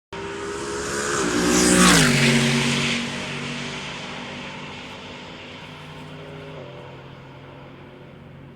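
Race car engine passing at speed. It swells to its loudest about two seconds in, where the engine note drops in pitch as it goes by, then fades away. The note steps down once more about six and a half seconds in.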